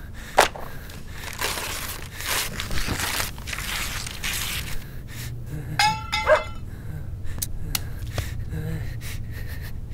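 Boots scuffing and shuffling on a hard tiled floor among scattered paper and cloth, with sharp clicks, clinks and crunching. A short pitched sound stands out about six seconds in.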